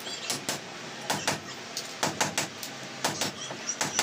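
Hand hammer chipping at the concrete edge of a hollow-block wall opening: sharp strikes, often in quick pairs, a few a second.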